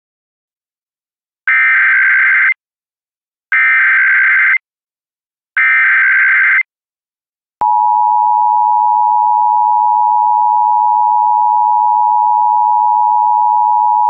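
Emergency Alert System SAME header: three one-second bursts of screeching digital data tones, evenly spaced, then about seven and a half seconds in the steady two-tone EAS attention signal begins and holds. Together they signal the start of an emergency alert broadcast.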